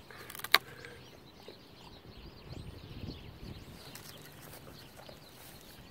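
Dog gnawing a dry wooden stick: a sharp crack about half a second in, then irregular low crunching bites from about two seconds in. Faint bird chirps.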